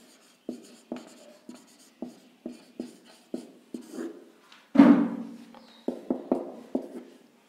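Marker pen writing on a whiteboard: a quick series of short scratchy strokes, about two a second, as a word is written, with one longer, louder stroke about five seconds in as it is underlined.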